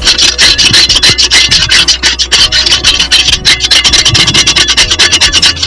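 Limescale being scraped off the inside of an electric water heater tank, a tool rasping back and forth in rapid strokes, several a second.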